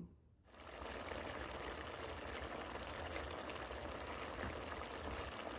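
Dulce de coco con piña, a thick mix of grated coconut, pineapple and evaporated milk, simmering in a pot. It bubbles steadily and softly from about half a second in as its liquid reduces.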